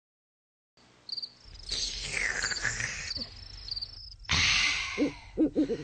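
Cricket chirping in a cartoon's sound design: five short high chirps at an even pace over a background bed. A louder rushing hiss about four seconds in, then a few short voice sounds near the end.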